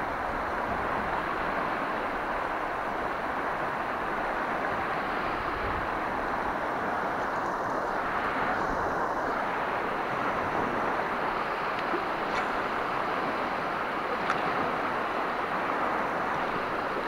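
Shallow river rapids rushing steadily over rocks: a broad, even roar of moving water.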